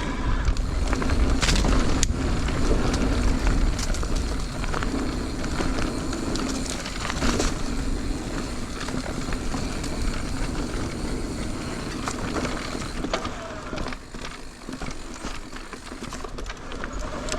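Mountain bike rolling along a dirt singletrack: a steady tyre and riding rumble, with the bike rattling and scattered sharp knocks over bumps.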